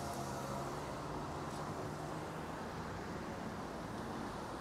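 City street ambience: a steady hum of traffic, with a low vehicle engine drone that fades away about halfway through.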